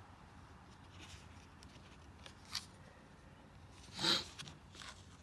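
Tarot cards being handled: a few faint slides and rustles against the cloth, then a louder brief swish about four seconds in as the next card is drawn from the deck.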